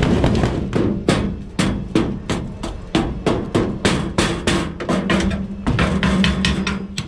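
Flat metal bar striking and knocking caked dirt-track clay off the underside of a dirt late model race car's chassis, with sharp strikes repeating about twice a second.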